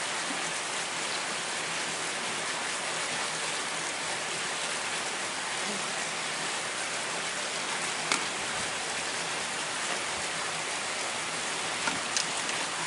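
Steady, even rushing hiss, with two brief sharp clicks: one about eight seconds in and one near the end.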